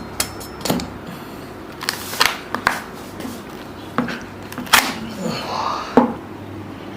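Freshly steamed bamboo tube being split open: several sharp knocks and cracks at uneven intervals, with some scraping between the last few.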